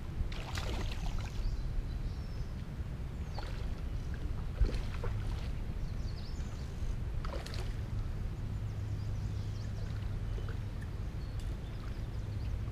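Steady low rumble of wind buffeting the microphone, with a few faint short clicks and rustles scattered through it.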